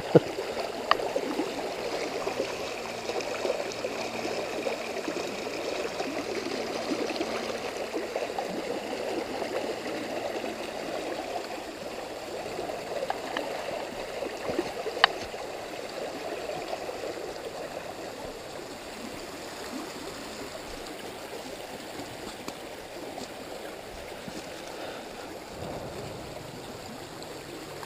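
Shallow rocky creek running and burbling over stones, the rushing growing quieter through the second half as the flow calms. A single sharp click about fifteen seconds in.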